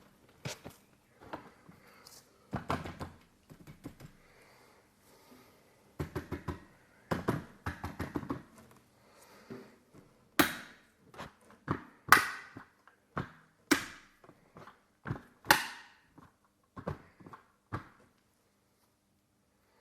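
A 1/24-scale diecast model car being handled: a series of light clicks and knocks, the first ones duller, then four sharper, brighter clicks in the second half, stopping near the end.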